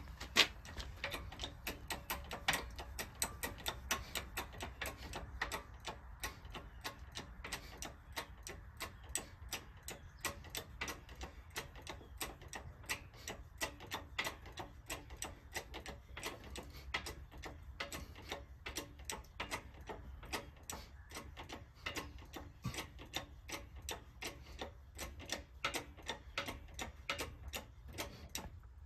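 Socket ratchet clicking in quick, uneven runs as it is worked back and forth, drawing the last bearing onto a John Deere 4230 Syncro Range transmission top shaft.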